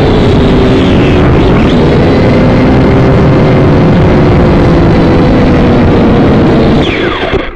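Small camera drone's electric motors and propellers running very loud and close, a steady whine with a rushing noise, while the drone lies in tall grass. Near the end the motors wind down with a falling whine and the sound drops away.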